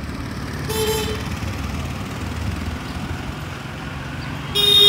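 Street traffic with a vehicle engine running close by. A short horn toot comes about a second in, and a louder horn blast starts near the end.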